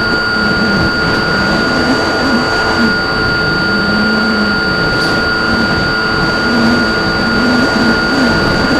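Onboard sound of an RC plane in flight: a steady rush of air and noise, with an unchanging high whine from the motor.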